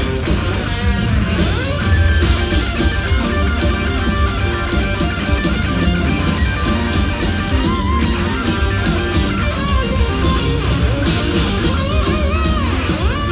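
Live rock band playing loud and amplified: an electric guitar plays a lead line with bent notes over a heavy bass and drums.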